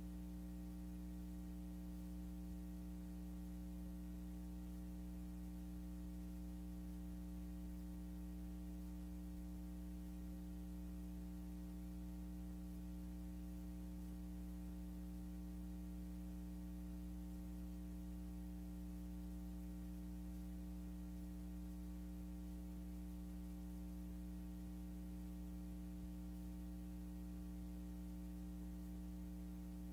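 Low, steady electrical mains hum with a stack of even overtones, unchanging throughout, on an otherwise silent film soundtrack.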